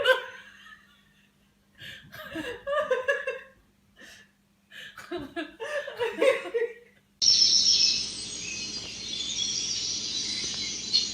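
A person laughing in three bursts, then an abrupt switch to steady high-pitched chirping.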